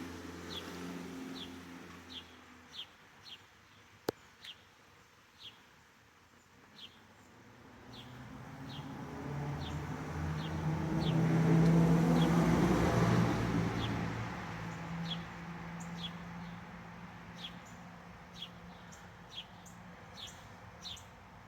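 Small birds chirping, short high chirps every second or so throughout. A vehicle passes, rising and then fading, loudest about halfway through.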